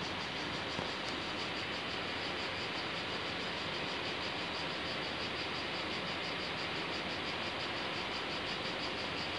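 Insects chirring in a steady chorus, with a fast, even pulsing high in pitch over a constant hiss.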